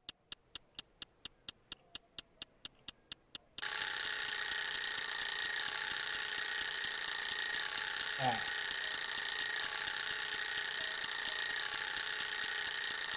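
Analog alarm clock ticking quickly, about five ticks a second. About three and a half seconds in, its alarm goes off: a loud, steady, continuous ring.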